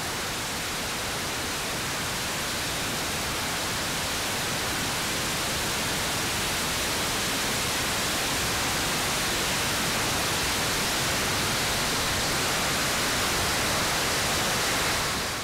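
Steady, even rushing noise of airflow over the microphone of a camera mounted on the fuselage of a flying giant-scale model jet, growing slightly louder; no engine whine stands out above it.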